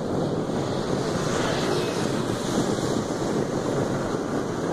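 Steady rushing noise of a moving vehicle, with wind buffeting the phone's microphone.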